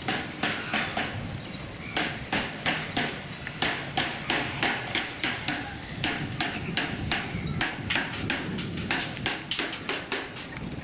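Rhythmic sharp knocks on a hard surface, about three a second, pausing briefly now and then.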